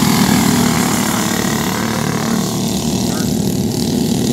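Two racing go-karts' small engines running at speed, a steady buzzing drone as the karts pass close by and pull away down the dirt track, fading a little over the second half.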